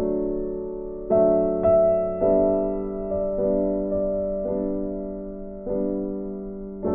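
Background instrumental music: slow piano chords, each struck and left to ring and fade, with a new chord or note about every second.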